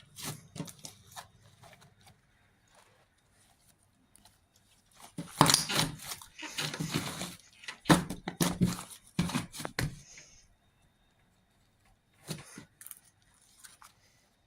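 Slime being worked by hand to make bubbles: bursts of sticky crackling and popping, loudest from about five to ten seconds in, with a shorter burst near the end.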